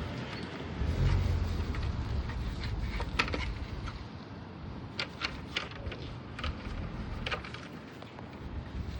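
Scattered sharp clicks and light knocks, several in quick succession about halfway through, over a low rumbling noise: handling of the Shark vacuum's plastic dust canister.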